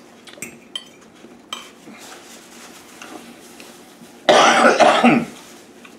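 A man coughing hard into a paper napkin: one rough burst of about a second, with a few pulses, after some faint clicks from handling dishes.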